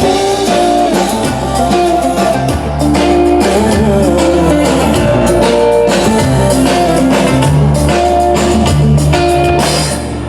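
Amplified live band music: an instrumental passage of a pop song played through a PA, with guitar over a steady bass and drum beat.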